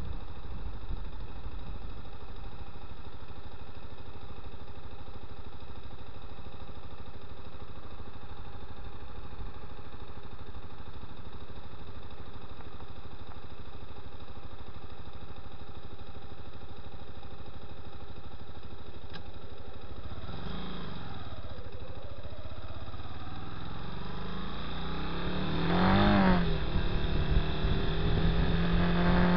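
Honda Twister 250's single-cylinder engine running steadily at low revs. About two-thirds of the way in its pitch dips and rises. Near the end it revs up and down once, then climbs steadily as the bike accelerates.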